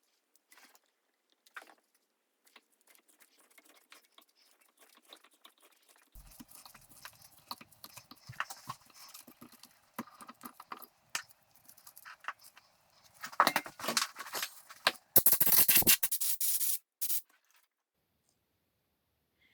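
Light scraping, rubbing and clicking as small parts are worked by hand, then a loud rushing noise of about two seconds near the end, stopping suddenly.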